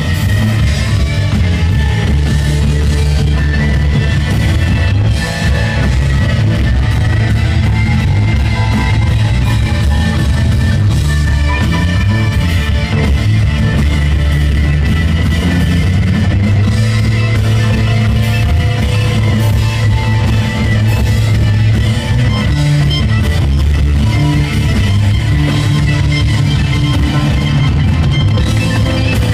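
Live indie rock band playing a song, loud and even throughout, with a heavy low end.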